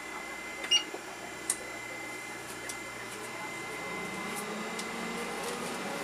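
Avaya Definity PBX cabinet powering up: a sharp click about a second in and a smaller one shortly after, then a steady hum of its cooling fans building from about four seconds in.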